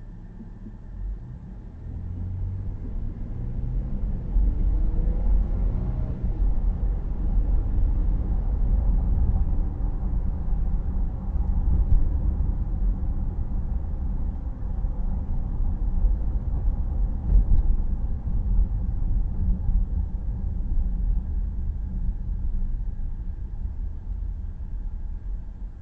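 A car pulling away and driving. Engine tones rise in pitch over the first several seconds as it accelerates, then a steady low rumble of engine and road noise.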